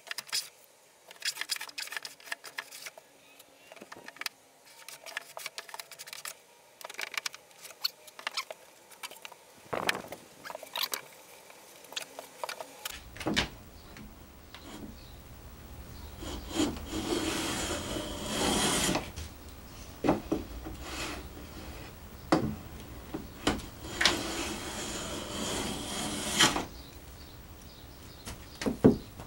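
Stanley 45 combination plane cutting a tongue along the edge of a board, its iron rasping through the wood. It makes many short strokes and knocks at first, then, about halfway, longer strokes of two to three seconds each.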